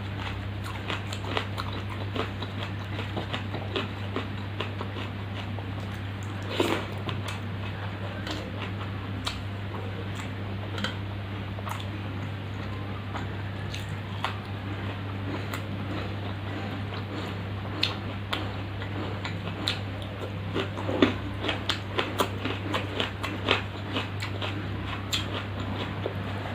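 Close-up eating sounds: chewing and biting with many small sharp mouth clicks, a few louder, over a steady low hum.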